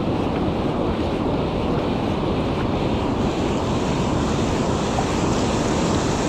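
Ocean surf washing up the beach, a steady rush of water with wind buffeting the microphone; the hiss grows brighter about halfway through.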